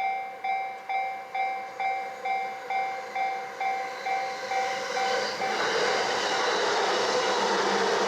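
Japanese railway level-crossing warning bell ringing about twice a second. About five seconds in, a Yamanote Line train passes over the crossing and its running noise swells and covers the bell.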